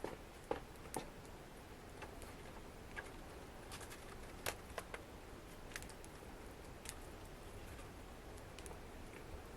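Wood fire crackling in a fireplace: irregular sharp pops and snaps, roughly one a second, over a faint steady hiss.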